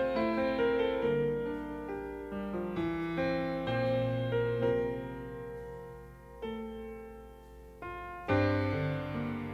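Background music: a piano playing a slow passage of single notes and chords that ring and fade, with fresh chords struck near the end.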